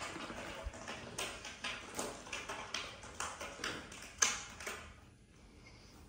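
Kittens scrambling over a paper sack and plastic bags: irregular rustling and crinkling with quick taps and scratches, dying away about five seconds in.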